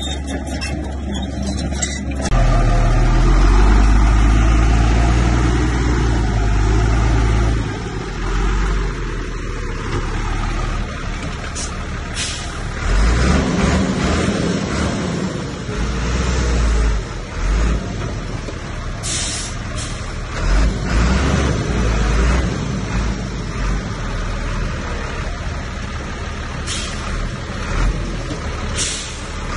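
Diesel engine of heavy earthmoving machinery running. It works louder for several seconds, about two seconds in, then rises and falls, with a few short sharp sounds.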